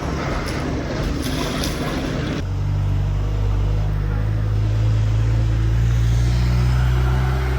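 Open-air noise with a few light clicks, then after a sudden cut a heavy engine running steadily with a low hum.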